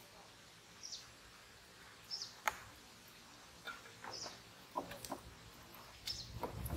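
A small bird giving short high chirps every second or so over quiet outdoor ambience, with a few sharp clicks and knocks from handling in a wooden boat.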